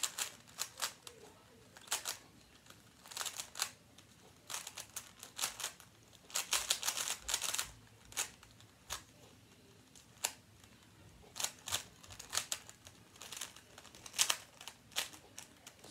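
A plastic Rubik's Cube being scrambled: quick clicking and rattling of its layers turning, in irregular bursts with short pauses between them.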